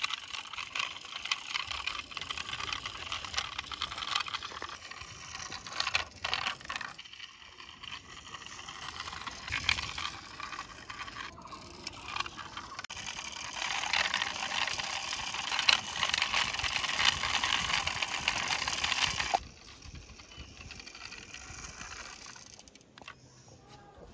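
A toy fire truck is being rolled by hand over rough stone and concrete, its wheels and running gear making a continuous grinding rattle. The rattle is loudest during a long push in the second half and stops abruptly, after which a quieter rattle follows.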